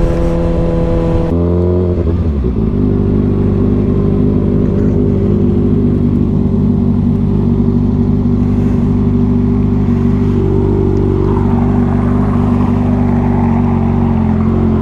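2023 Kawasaki ZX-6R's inline-four engine, on a Two Wheel Dyno Works tune, drops in revs over the first two seconds or so and then runs steadily at a low, even speed, likely idling.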